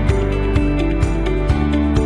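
Background music with a steady beat of about two beats a second under sustained held notes.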